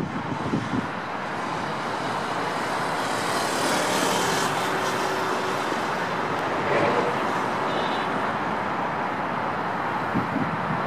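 Road traffic on a multi-lane road: a steady rush of tyres and engines, swelling as vehicles pass between about three and seven seconds in.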